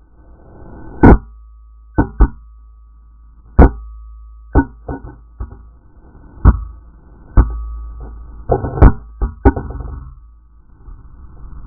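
A GoPro camera in its plastic housing, loose after its bike mount snapped, knocking and clattering hard about a dozen times at uneven intervals, with a quick run of knocks near the end, over a steady low rumble.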